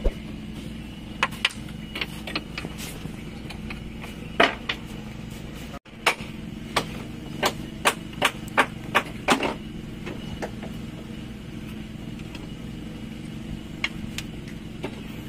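Sharp metallic knocks and taps, like hammering or tools striking metal, including a quick run of strikes about two a second midway, over a steady low mechanical hum.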